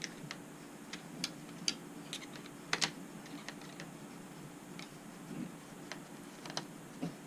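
Irregular light clicks and taps of a small screwdriver and small helicopter parts being handled while the tail assembly of an RC helicopter is taken apart, the loudest click a little under three seconds in.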